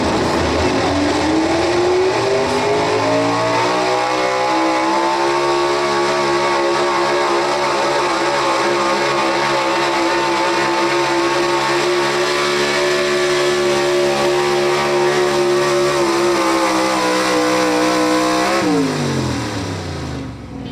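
Pro street Chevrolet pickup's engine at full throttle under load, pulling a sled down a truck-pull track. The revs climb over the first few seconds, hold high and steady, sag slightly, then drop away sharply near the end as the pull finishes.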